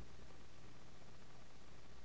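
Faint, steady background hiss with a low hum: room tone.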